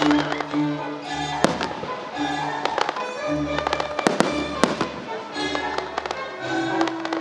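Fireworks shells bursting with several sharp bangs, a quick cluster of them about four seconds in, over show music with a repeating low pulse.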